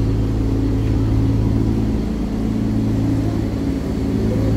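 A parked lorry's engine idling steadily, a constant low drone with an unchanging pitch.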